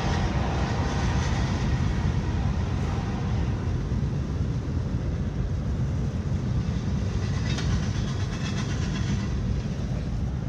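Steady low rumble heard from inside a moving Ford car, tyre and engine noise mixed with the rumble of a train running on the nearby tracks, with a brief rattle about eight seconds in.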